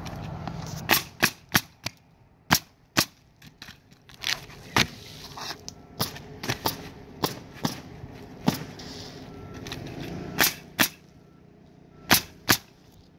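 Pneumatic coil roofing nailer driving nails through asphalt shingles: sharp shots fired in quick clusters of two to four, with short pauses between groups.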